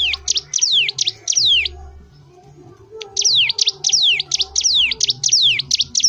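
Caged cigun (ciblek gunung) singing in full voice, which keepers call gacor. It gives rapid runs of sharp notes, each sweeping down in pitch, about four a second. A first run of under two seconds is followed by a pause of about a second, then a second, longer run.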